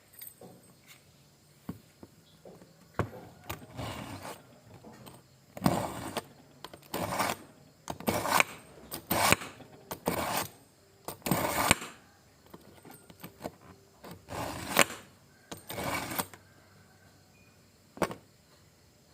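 A knife blade drawn repeatedly through a knife sharpener: about a dozen separate gritty scraping strokes, each under a second long, with short pauses between them.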